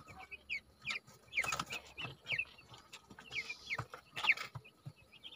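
Broiler chicks peeping: scattered short, high chirps, each falling in pitch.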